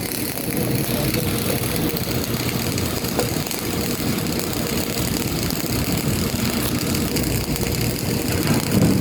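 Workshop machinery running steadily: a continuous engine-like hum with a faint steady tone.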